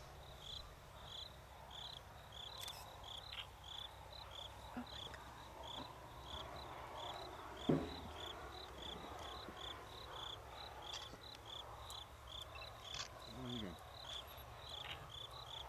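Insects chirping in a steady, even rhythm, about three high chirps a second, over a low steady hum. A single sharp knock comes about eight seconds in.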